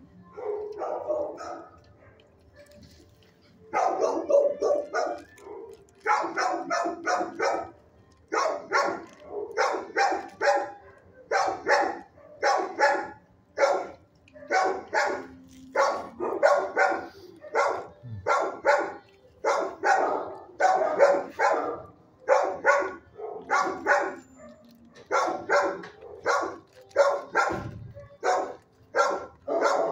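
Dogs in neighbouring shelter kennels barking in quick runs of three to five barks, starting about four seconds in and going on without a break after a softer sound in the first couple of seconds.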